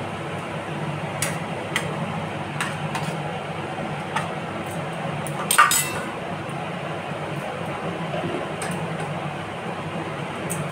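Spoon clicking and clinking against a steel bowl and container while spice paste is put onto raw chicken pieces: a few light clicks, with the loudest clatter a little over halfway through, over a steady low hum.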